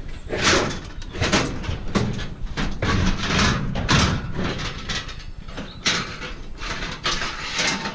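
Scrap cooker being dragged and hauled out of a van: repeated scraping and clunking of sheet metal, one stroke after another.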